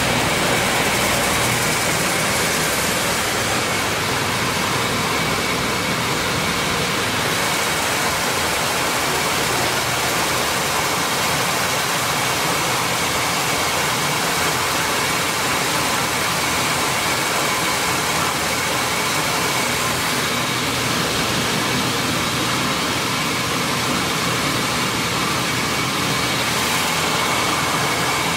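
PD2 maize grits milling machine running steadily while milling corn, a dense even machine noise with a thin steady high whine through it.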